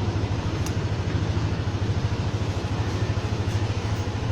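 Vehicle engine idling steadily with a low, even rumble.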